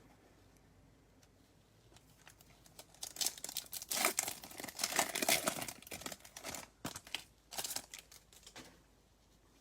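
A foil trading-card pack wrapper being torn open and crinkled by hand, a dense crackling that starts about three seconds in and dies down near the end.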